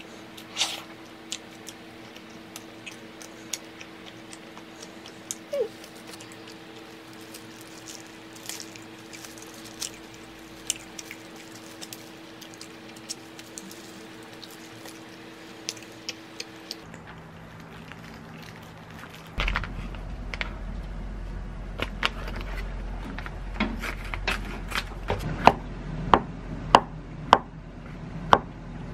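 Quiet room tone with a low hum and scattered small clicks and rustles. About two-thirds in, a kitchen knife starts slicing shiitake mushroom on a wooden cutting board: a steady run of sharp knocks of the blade on the board, about one or two a second, loudest near the end.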